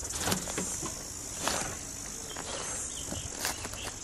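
Insects chirring in a steady high buzz, with a few footsteps or knocks in between, the loudest about a second and a half in.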